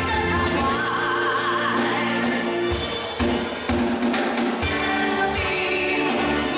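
Live pop band playing with a woman singing lead over drum kit, bass and keyboards. About a second in the bass and kick drum drop out, and they come back in with drum hits at about three seconds.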